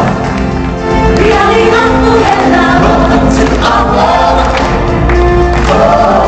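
A choir of singers performing an upbeat African-style song over loud live-show music with a steady bass.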